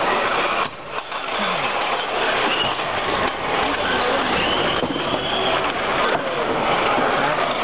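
Busy hall din: crowd chatter mixed with the whir of small radio-controlled robots' drive motors and wheels on the arena floor, with a few short high whines and a brief dip about a second in.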